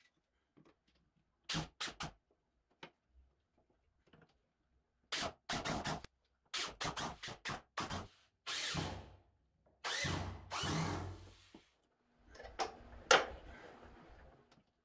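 Pine boards being knocked and handled as a curved board is braced up under a table rail, with a few short bursts of a corded power drill.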